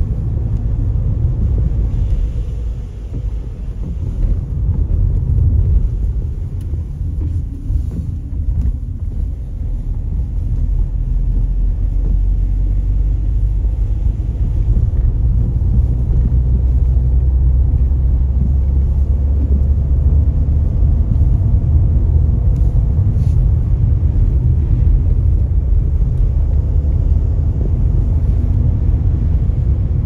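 Car driving on a wet road, heard from inside the cabin: a steady low rumble of engine and tyre noise that grows a little louder about halfway through.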